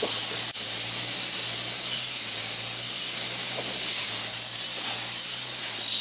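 Steady construction-site background noise: an even hiss with a low machine hum underneath.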